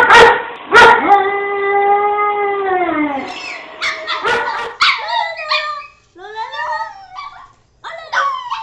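Dogs howling: two sharp barks at the start, then a long, drawn-out howl that drops in pitch at its end. After that come broken, wavering yelping howls with short breaks, and another howl begins near the end.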